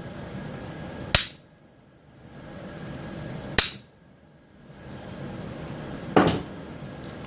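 Hammer blows on a steel padlock: three sharp metallic strikes, about two and a half seconds apart, the last one heavier and duller, knocking loose the pin that holds the lock together.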